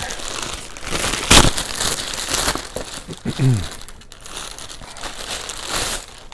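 Packaging being crinkled and rustled as a small product box is opened, with one loud sharp crackle about a second in.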